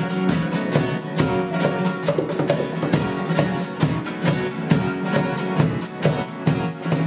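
A live rock band playing: strummed guitars over a steady, even beat.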